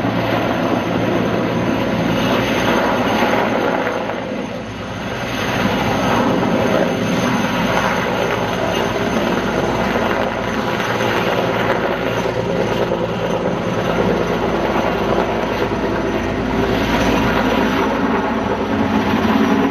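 Sikorsky S-64 Skycrane firefighting helitanker flying overhead with its snorkel hose hanging, its twin turboshaft engines and rotor making loud, steady helicopter noise, which dips briefly about four to five seconds in.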